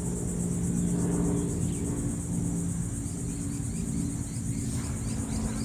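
An insect chorus, shrill and steady with a fast pulse, over a low steady hum.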